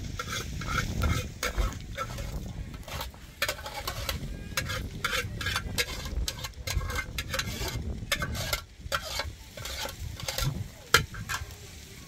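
Cooking at a wood-fired hearth: metal pot lids and a ladle clinking and scraping on the pots, over a scatter of short crackles, with one sharp knock about eleven seconds in.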